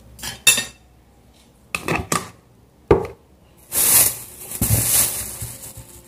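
Metal knife and fork clinking and scraping against a glass bowl while eating: a few sharp separate clinks, then a longer, louder noisy stretch about four seconds in.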